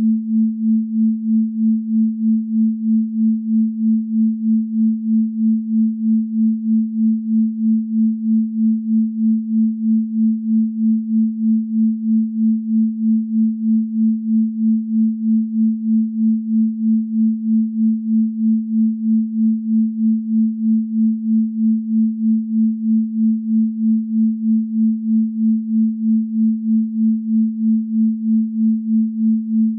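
Electronically generated pure sine tone at 221.23 Hz, the "Venus frequency", held at one pitch and pulsing evenly in loudness about twice a second.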